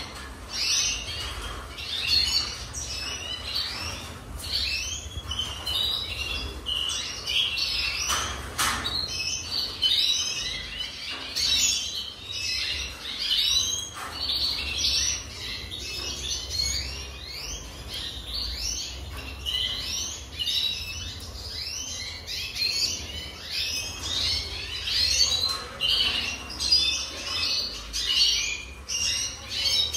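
Red siskin singing: a continuous song of rapid twittering chirps and trills.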